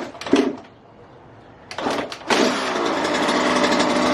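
Kawasaki KX100's two-stroke single-cylinder engine starting about two seconds in after a couple of knocks, then running steadily. It fires now that the fuel valve, which had been left off, is turned on.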